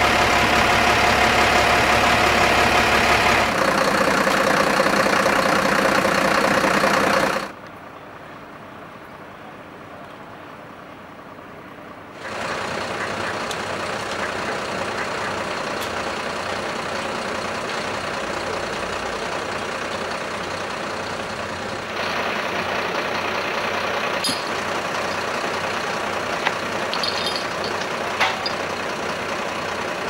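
Fire trucks' diesel engines idling steadily, heard in several short takes that change in level, with a quieter stretch about a third of the way in. A few faint clicks near the end.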